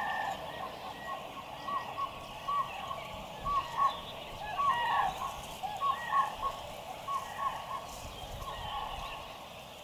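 Many short, hooked animal calls, repeated and overlapping as a chorus.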